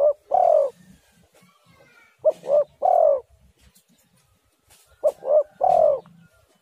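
Spotted dove cooing: a repeated three-note phrase, two short coos and then a longer, falling coo, given three times about three seconds apart.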